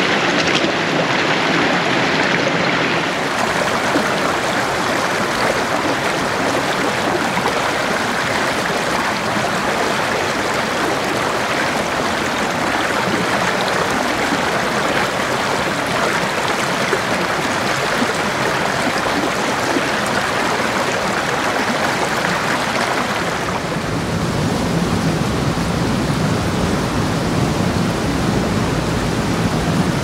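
A small waterfall and stream rushing steadily over rocks, picked up close by a Tascam Portacapture X8's built-in microphones set A/B. About three-quarters of the way through, the rush turns deeper and lower.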